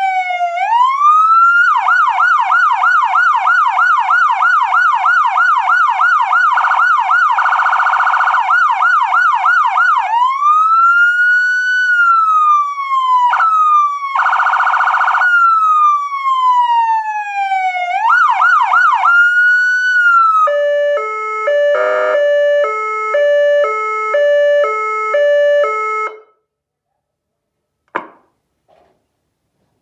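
Carson SA-441 electronic siren switching between its tones: slow rising and falling wails, fast yelp sweeps, a short flat buzzing horn tone, and near the end an alternating two-pitch hi-lo that stops abruptly. A single short click comes about two seconds after it stops.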